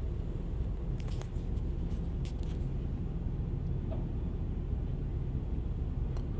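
Steady low rumble of heavy demolition machinery at work, with a few sharp knocks about one and two seconds in and again near the end.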